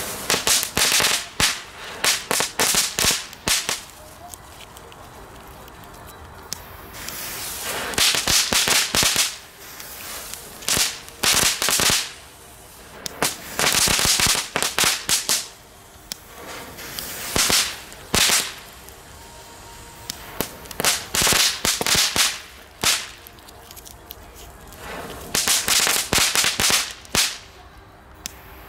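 WECO Meteorite Category 1 ground fireworks going off one after another: about seven bursts of rapid crackling pops, each a second or two long and a few seconds apart.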